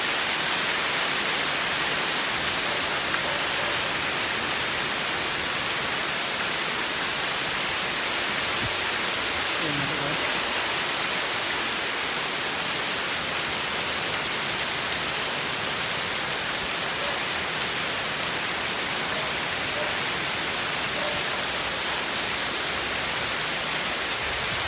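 Heavy rain pouring steadily onto trees, foliage and paved ground, a dense, even hiss that holds at the same level throughout.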